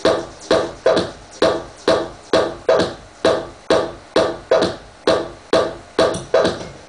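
Progressive house track intro played from a CDJ deck through a DJ mixer: a pulsing synth note hits on every beat, about two a second, each one cut short and decaying.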